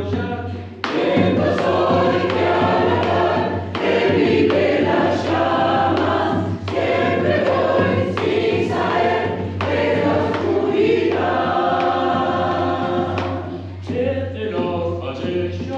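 A choir singing, many voices together, in phrases with short breaths between them.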